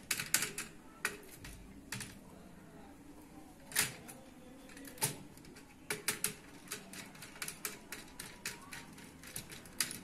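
Irregular sharp clicks and taps of a screwdriver working the screw terminals of a plastic modular switchboard as wires are fitted and tightened, with a few louder single clicks a few seconds in.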